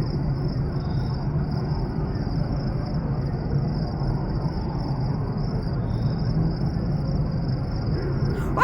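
An insect trilling steadily at a high pitch, over a constant low rumble.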